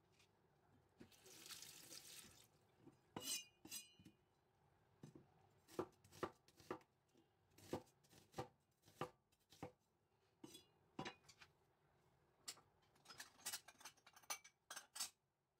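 A cleaver chopping an onion on a wooden cutting board: a string of sharp, irregular knocks as the blade strikes the board, coming faster near the end. A brief hiss comes about a second in, before the chopping starts.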